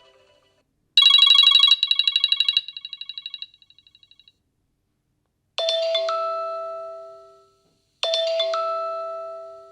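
iPhone ringtones and alert tones played in turn: a rapid high trill that drops in level in steps and stops, then a bright two-note chime sounded twice, each ringing out and fading.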